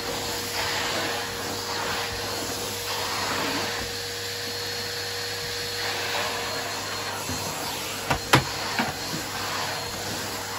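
Numatic Nupro Reflo tub vacuum cleaner running steadily, its motor holding a constant whine over the rush of suction as the floor tool is pushed over carpet. Two sharp knocks a little after eight seconds in.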